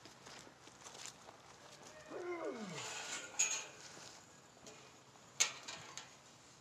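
A cow's single moo, falling in pitch over nearly a second, about two seconds in. It is followed by two sharp metal clanks from the steel hay ring panels being handled, the second one louder.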